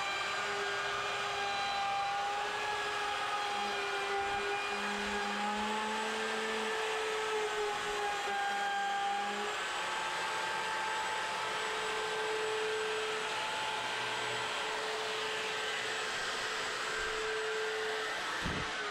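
Electric router running steadily as it cuts down a wooden window ledge, its whine shifting slightly in pitch as the load changes. A short knock near the end.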